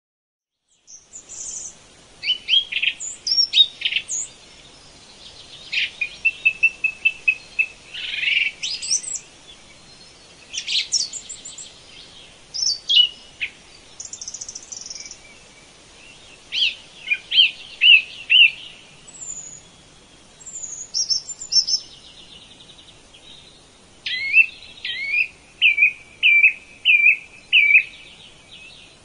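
Several birds calling and singing: a varied mix of whistled notes and chirps over a faint steady background, with a quick run of repeated notes near the end. It starts about a second in.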